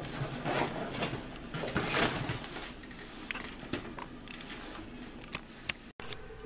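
A suitcase being handled: rustling with scattered small clicks, and a few sharp ticks a few seconds in, as from its clasp. The sound cuts out for a moment near the end.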